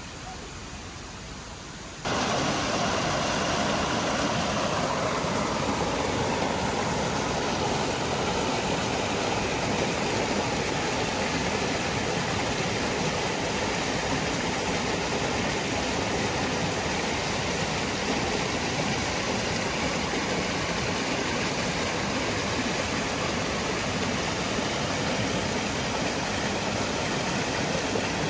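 Shallow stream rushing over rocks: a steady, loud rush of water that cuts in suddenly about two seconds in over a quieter background.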